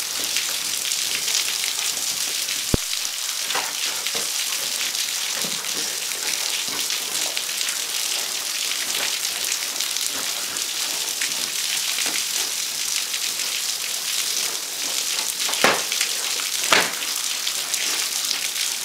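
Small waterfall splashing, a steady hiss of falling water, with two louder knocks about a second apart near the end.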